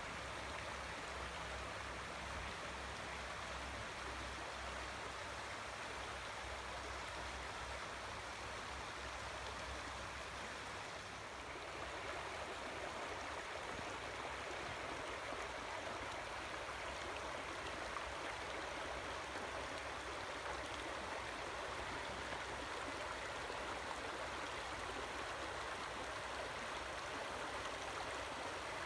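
Shallow stream running steadily over pebbles and stones where it enters a lake, with a faint low rumble underneath for roughly the first ten seconds.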